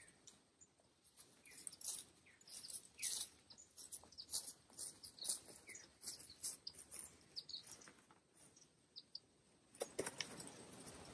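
Small birds chirping in short, high calls, scattered irregularly throughout; faint.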